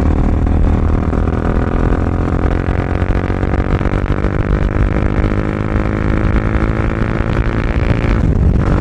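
Bajaj Dominar 400's single-cylinder engine running through an aftermarket Akrapovic full-system exhaust while the bike is ridden at a steady speed, giving a loud, even exhaust note.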